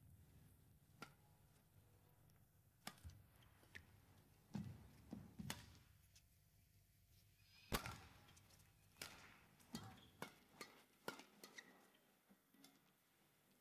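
Badminton rally: sharp racket hits on the shuttlecock about once a second, with thuds of footfalls and brief squeaks of court shoes on the mat; the loudest hit comes about eight seconds in.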